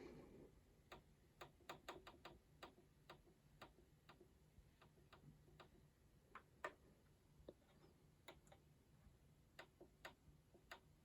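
Faint, irregular clicks of a PowerBook 1400 laptop's controls being pressed while display settings are changed. The clicks come several a second in the first few seconds, then scattered.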